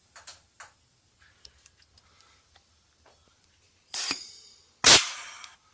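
Pneumatic pop rivet gun fired twice: a few faint clicks, then a sharp snap about four seconds in and a louder snap with a short hiss of air under a second later.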